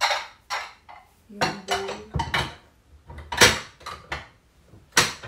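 Ceramic dinner plates clinking and clattering as they are stacked onto a cupboard shelf: a dozen or so sharp, ringing knocks at an uneven pace.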